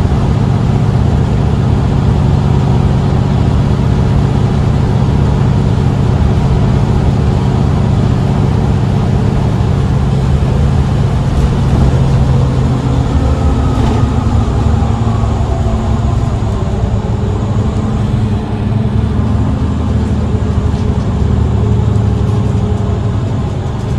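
Mercedes-Benz Citaro C2 city bus engine and drivetrain running steadily, with a faint whine that falls in pitch about halfway through.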